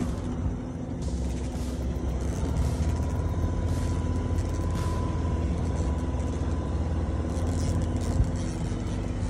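Boat's outboard motor running steadily at trolling speed, a continuous low hum with water and wind noise over it.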